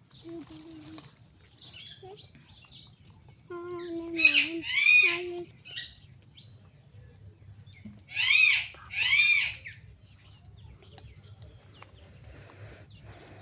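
Sparrow chirping: two pairs of loud, arched chirps, the first pair about four seconds in and the second about four seconds later.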